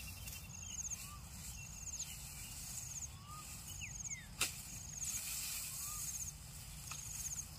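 Field ambience: an insect's short, high ticking trill repeating about once a second, with a few brief whistled bird notes. One sharp chop about halfway through fits a blade cutting through grass stems.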